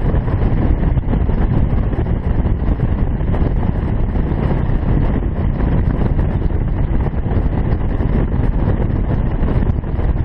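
Steady wind rush buffeting the microphone of a Yamaha V Star 650 cruiser motorcycle riding along at road speed, with the low rumble of its V-twin engine blended underneath.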